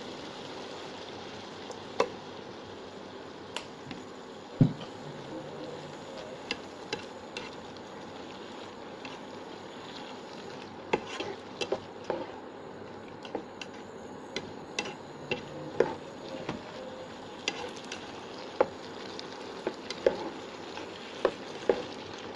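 A mushroom and tofu stir-fry sizzling steadily in a non-stick frying pan while it is stirred with a plastic spatula, giving sharp clacks and scrapes against the pan. The clacks come more often in the second half.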